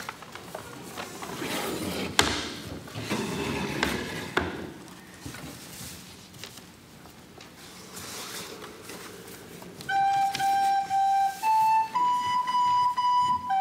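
Rustling and a few knocks as the wooden kamishibai stage is opened and its picture cards are changed, then about ten seconds in a wooden recorder starts playing a slow melody of held notes stepping upward.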